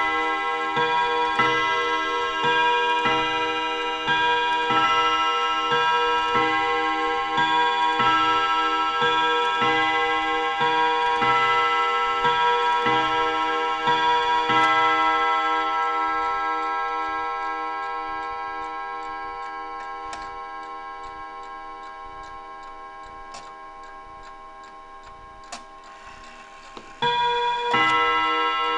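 1950s Mauthe mantel clock chiming on its gong rods: a run of strokes at several pitches, about one every two-thirds of a second, for roughly the first half. The ringing then slowly dies away while the movement ticks on, and a new chime stroke comes near the end.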